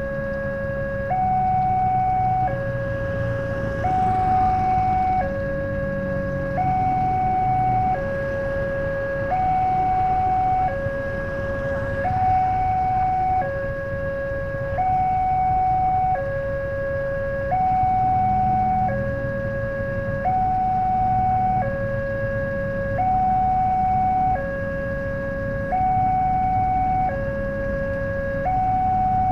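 Railway level-crossing warning alarm sounding, a two-tone electronic signal switching between a lower and a higher tone about every second and a bit, the warning that a train is approaching. A low engine rumble swells underneath at times.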